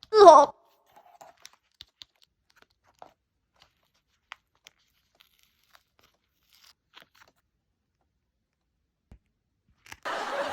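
Paper being handled, with faint scattered clicks and taps. A short, loud voice-like sound with a bending pitch comes right at the start, and a loud rustling or crinkling noise begins near the end.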